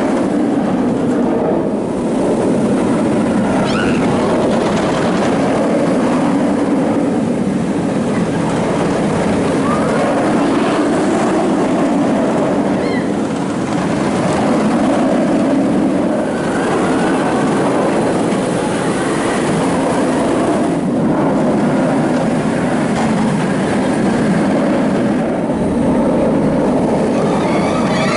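Nemesis, a steel inverted roller coaster, with its trains running along the track past the supports: a continuous loud rumble of wheels on steel rails.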